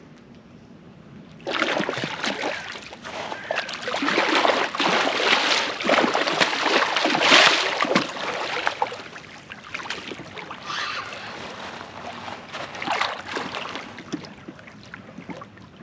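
Wels catfish splashing and thrashing at the water's surface as it is drawn in to be landed. It starts about a second and a half in, is heaviest in the middle, then eases to lighter splashes.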